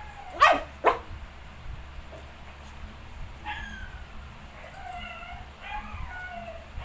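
19-day-old puppies whimpering and squealing in short, high wavering cries, with two loud sharp yelps within the first second.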